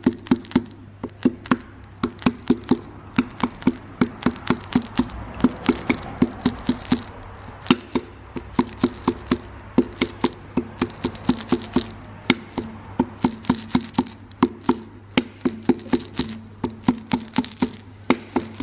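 Rapid light taps, about three or four a second, each with a short metallic ring, on a piston ring compressor and piston crown: a piston being tapped down through the compressor into its cylinder bore. Near the end the piston becomes tight to drive in.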